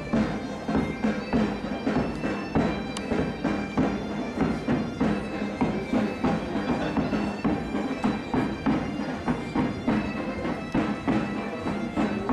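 Portuguese bagpipes (gaitas de foles) playing a tune over a steady drone, with drums, bass drums among them, beating a steady rhythm.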